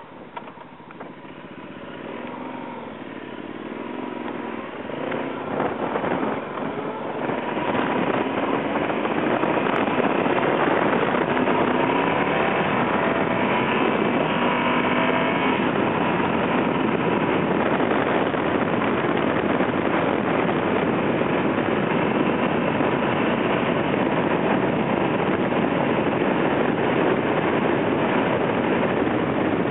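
Yamaha Super Tenere's parallel-twin engine pulling away from a standstill, its revs rising in several climbs as it accelerates through the gears over the first several seconds. It then runs steadily at speed under a loud, dense rushing noise.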